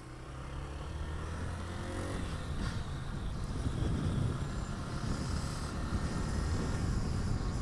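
Motorcycle engine running as the bike speeds up, with rushing wind noise on the microphone that grows louder as speed rises.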